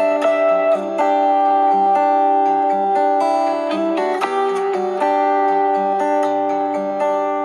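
Samsung Galaxy S6 edge+ ringtone playing: a melodic tune of held notes in a plucked-string tone, over a bass line that steps from note to note.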